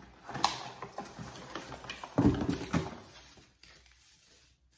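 Packaging wrap rustling and crinkling as an item is unwrapped by hand, with a louder dull thud of handling about two seconds in; it quietens near the end.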